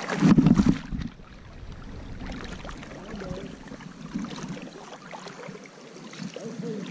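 River water sloshing and splashing around an angler wading in a shallow river, with a loud burst of splashing in the first second and the water rushing steadily after.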